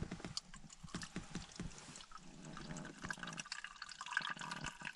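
Green tea being poured from a thermos into a cup: a faint trickle with small splashes and clicks, steadier from about three and a half seconds in.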